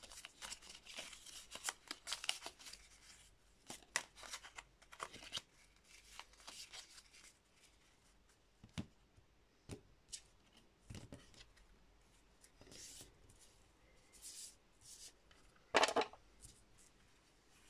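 Lenormand cards being shuffled and laid out by hand on a table: scattered soft scrapes, slides and taps of card stock, busier in the first few seconds, with one sharper slap near the end.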